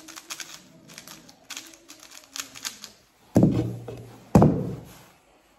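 Rapid clicking and clacking of a 3x3 speedcube being turned fast in a speedsolve, stopping about three seconds in. Then two heavy thuds about a second apart, the first as the solved cube is put down on the mat.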